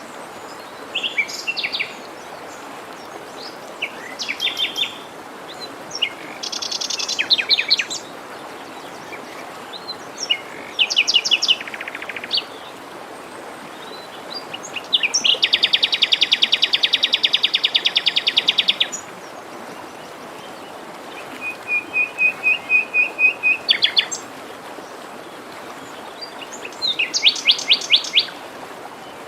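Songbirds singing in separate high phrases over the steady rush of a forest stream. Among them is a long, fast trill lasting about four seconds midway through, followed by a run of about eight clear repeated notes.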